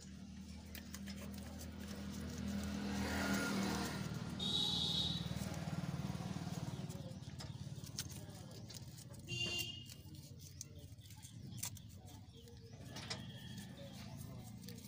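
A motor vehicle swelling and fading over a few seconds, over a low steady engine hum, with a few faint clicks and two short high chirps.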